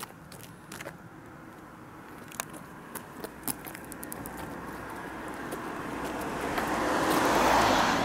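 A car driving past on the road: its tyre and engine noise builds slowly to a peak near the end, then starts to fade. A few faint clicks come earlier.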